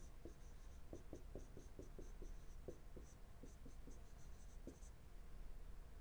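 Stylus writing on a pen tablet: a run of faint, quick taps and scratches, several a second, as an equation is written out stroke by stroke, stopping about five seconds in.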